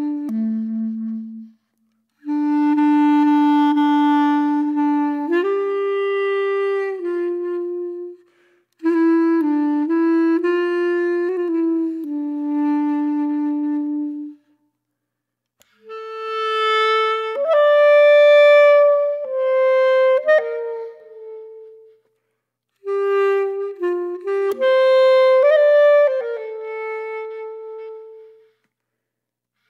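Background music: a solo woodwind instrument playing a slow melody of long held notes, in phrases of a few seconds broken by short pauses.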